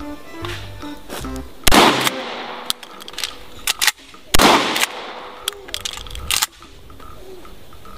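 Two pump-action shotgun shots about two and a half seconds apart, each followed by a ringing echo. Several shorter sharp clicks come between and after the shots.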